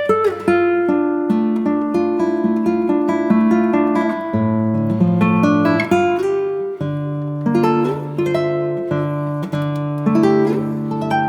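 Background music: acoustic guitar plucking and strumming a steady melody.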